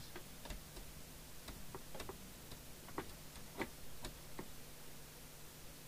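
Faint light clicks and ticks, about a dozen at irregular intervals, over a faint steady low hum.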